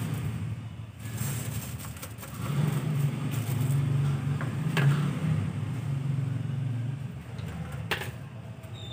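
Low rumble of a motor vehicle engine running, strongest for a few seconds in the middle. Faint scraping comes from a plastic brush and dustpan sweeping litter off a concrete floor, with a sharp clack about five seconds in and another near the end.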